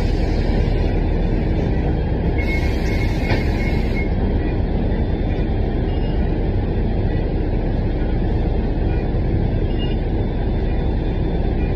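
Inside a moving city transit bus: a steady low rumble of engine and road noise. Two brief hisses come in the first four seconds.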